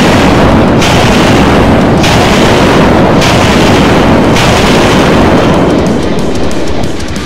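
Loud, heavily distorted rock music, dense and unbroken, easing off about six seconds in.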